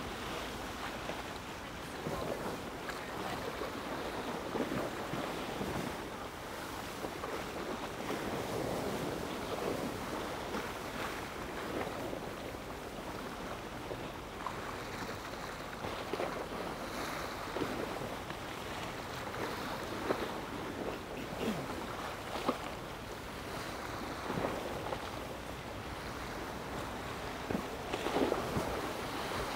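Shoreline ambience: a steady rush of wind on the microphone with small waves lapping irregularly against a stone seawall.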